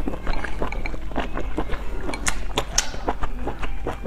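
Close-up eating sounds: pieces of pork in chili broth being slurped and chewed, with many short, wet mouth clicks.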